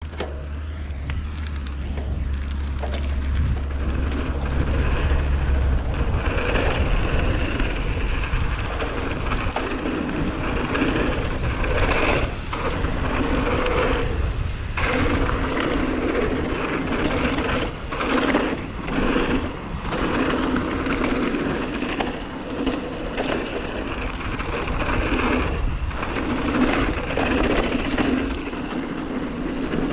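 Hardtail mountain bike descending a dry dirt and gravel trail: tyres crunching and rolling over the loose surface, with repeated rattles and knocks as the bike jolts over bumps. A low wind rumble is strongest in the first few seconds.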